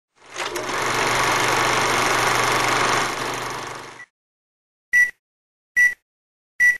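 A steady whirring noise with a low hum fades in, runs for about three seconds and dies away about four seconds in. Then come three short high beeps, evenly spaced a little under a second apart: film-leader countdown beeps.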